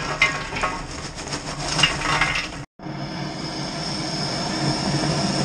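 Charcoal poured from a paper bag into a kettle grill, clattering for about two and a half seconds. After a brief break, a handheld gas torch hisses steadily as it lights the charcoal.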